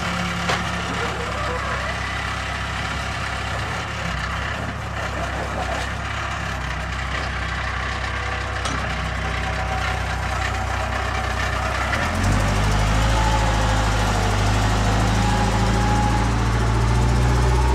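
Diesel engines running: the Case 580 backhoe loader's engine works while it dumps a bucket of sand into the dump truck. About twelve seconds in, a steady, louder idle takes over from the Mercedes-Benz 1618 dump truck's diesel engine close by.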